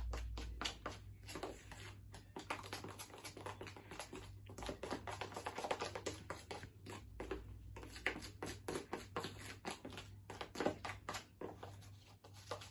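Slime mixture of PVA glue, shaving foam and bicarbonate of soda being stirred in a plastic pot, the utensil making quick, irregular clicks, taps and scrapes against the sides.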